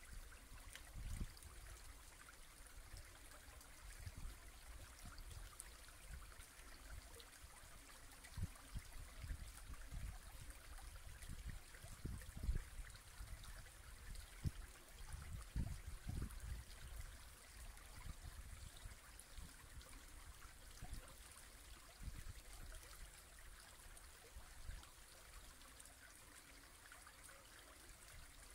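Small brook babbling over shallows: a steady, gentle rush of water, with irregular low rumbles now and then.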